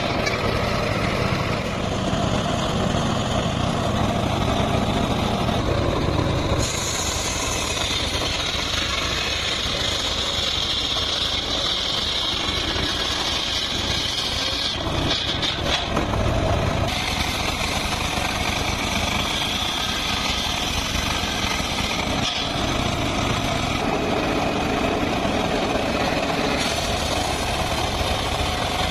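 Homemade engine-driven circular sawmill running and ripping logs lengthwise. A steady machine drone carries a high blade whine that changes a few times as cuts start and finish.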